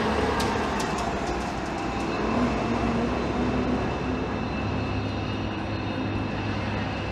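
Steady city street noise: a low vehicle hum with a faint higher whine, and a few light clicks in the first second.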